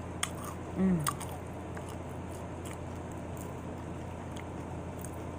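A person eating loaded tortilla-chip nachos close to the microphone, with faint crunches and chewing, and a short falling voice sound about a second in.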